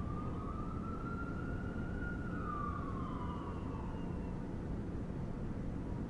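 An emergency vehicle siren sounding one slow wail that rises and then falls away over a steady low city rumble.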